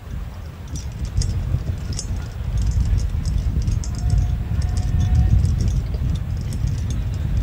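Outdoor racetrack ambience as horses are walked on the dirt track: a steady low rumble, with many scattered light clicks and jingles.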